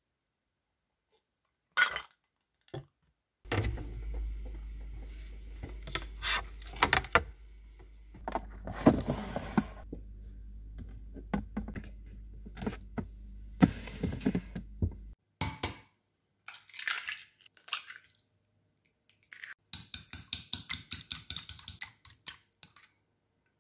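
Eggs lifted out of a plastic fridge egg tray, with plastic clicks and knocks over a low steady hum. Near the end, chopsticks beat eggs in a glass bowl: a quick, even run of clicks, about six a second.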